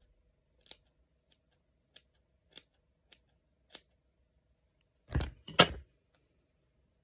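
Hand scissors snipping into a fringe of hair with about five separate, sharp snips over roughly three seconds. Two louder rustling sounds follow about five seconds in.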